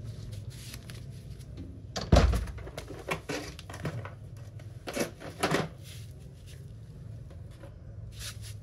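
A plastic socket-set case set down on a concrete floor with a heavy thump, followed by a string of sharp clicks and rattles from the case and the tools being handled.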